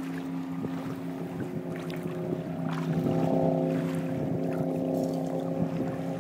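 Supercharged Mercury Racing 525 V8 of a Hallett 240 Open Bow running at a steady pitch. Its sound grows louder about three seconds in and eases off near the end.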